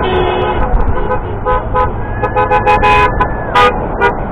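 Vehicle horns honking over the rumble of passing traffic. There are many short toots throughout, and one longer blast from about two seconds in to three and a half.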